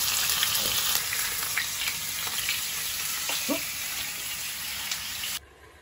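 Thick pork steak sizzling in hot oil in a frying pan, a steady frying hiss, just after the raw meat has gone in. The sizzle cuts off suddenly near the end.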